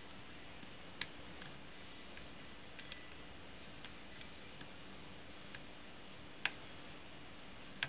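Faint irregular ticking of a short-hook lock pick working the pin tumblers of a five-pin locker lock during single pin picking, with three sharper clicks about a second in, past six seconds, and at the very end.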